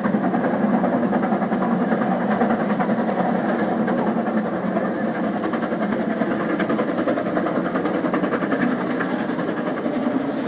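Double-headed steam locomotives, LMS Jubilee 4-6-0 45690 Leander and 8F 2-8-0 48151, working hard with a fast, steady beat of exhaust, out of sight past the bridge.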